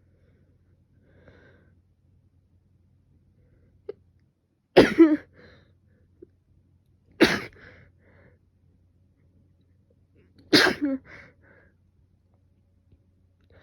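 A person sneezing three times in a row, about two to three seconds apart, in a sneezing fit while ill with a fever. Each sneeze starts suddenly and is followed by a few softer sounds.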